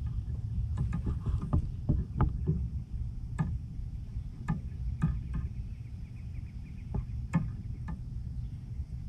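Small fishing boat on the water: a steady low rumble with scattered sharp clicks and knocks of gear on the boat.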